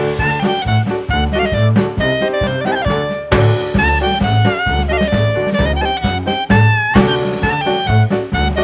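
Jazz-style background music: a melody line over a steady low bass pattern and regular drum beats.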